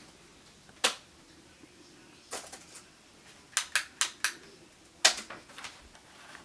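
A handful of sharp clicks and knocks: one about a second in, a few soft ones, then four quick clicks, and a louder knock about five seconds in.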